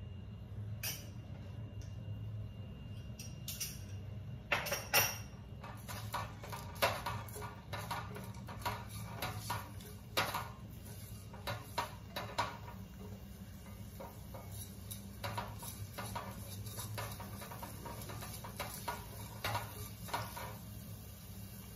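A silicone spatula stirring and scraping frying onions, green chilli and ginger-garlic paste in a coated metal pot, with repeated short scrapes and knocks against the pot at an irregular pace. A steady low hum runs underneath.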